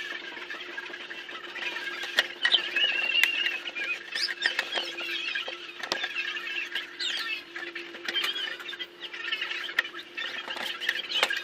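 High chirping and twittering like small birds, many short rising and falling notes, with scattered sharp clicks over a steady low hum.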